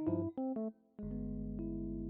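Background music: electric piano playing a few short notes, then about a second in a sustained chord over a steady low bass comes in.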